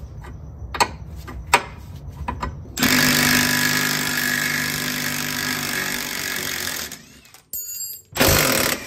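Cordless impact wrench hammering steadily for about four seconds, spinning off the front axle nut at the centre of the hub. There are a few light knocks and clicks before it starts, and a short loud burst near the end.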